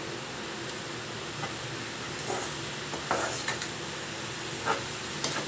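A metal spatula stirs and scrapes cabbage-and-soya momo filling around a non-stick pan over a steady sizzle. A few short scrapes and clicks stand out between about two and five seconds in.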